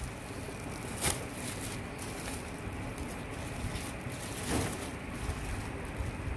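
Plastic wrapping crinkling and rustling as it is handled and pulled off a plastic toy part, with a sharp crackle about a second in and a louder rustle around four and a half seconds in.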